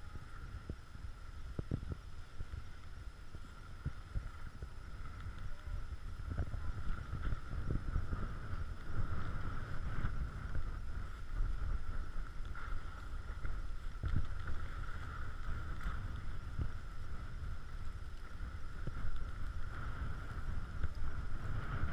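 Wind buffeting the microphone of a camera carried by a skier running down a piste, with the rumble and scrape of skis on packed snow and occasional knocks. A faint steady high whine sits above it.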